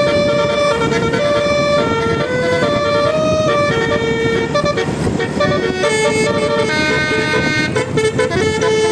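Bus telolet horn, a multi-tone air horn, playing a melody of held notes that step from pitch to pitch over a noisy rumble, held on almost without pause, with a short break about five seconds in.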